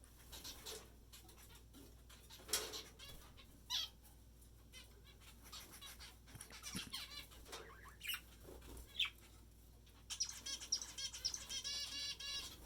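Small cage birds chirping and calling, budgies and zebra finches, in scattered short calls, then a fast run of repeated chirps over the last two and a half seconds.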